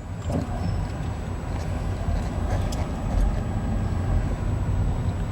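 Car engine and road noise heard from inside the cabin while driving in city traffic: a steady low rumble.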